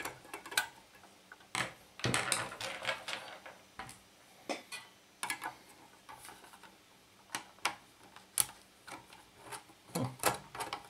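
A screwdriver working a large slotted screw through a fan's wire grille: irregular metallic clicks and taps, short scrapes, and knocks from the plastic housing being handled.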